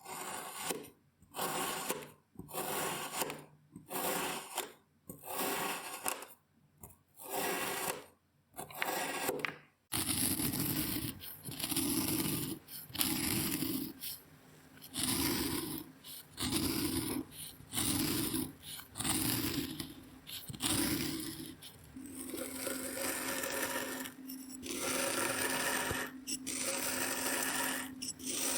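Kinetic sand being cut and crushed: a run of short scraping strokes, about one a second with short pauses between them for the first ten seconds, then closer together. A steady low hum sits under the strokes from about twenty-two seconds in.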